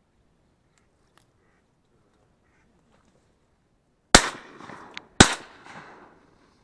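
Two shotgun shots about a second apart, a little over four seconds in, each followed by a short fading echo.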